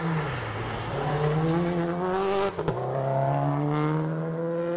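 Subaru WRX STI rally car's turbocharged flat-four engine revving hard as it accelerates away out of a gravel corner. The pitch climbs, drops sharply at an upshift about two and a half seconds in, then climbs again.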